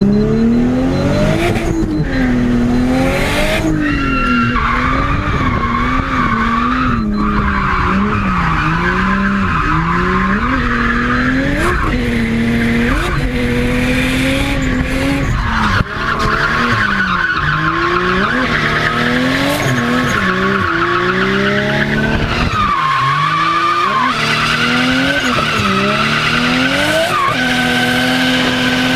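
Nissan Skyline R33's straight-six engine revving hard, its pitch swinging up and down every second or two as the car drifts. The tyres squeal continuously over it.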